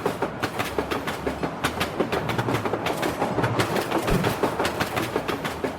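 Train running on the rails, its wheels clicking over rail joints in a quick, even rhythm over a steady rumble. A brief low thump comes about four seconds in.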